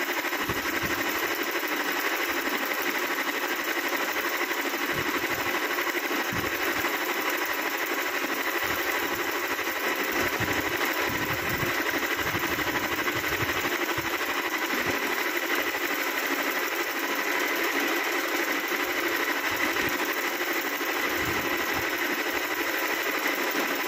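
Singer Simple electric sewing machine running steadily, its needle stitching free-motion embroidery through cloth held in a hoop.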